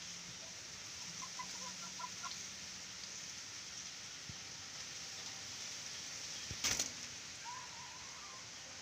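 Caged doves scuffling: a short burst of wing flapping about two-thirds of the way through, the loudest sound here. A few faint bird chirps come about a second in, over a steady background hiss.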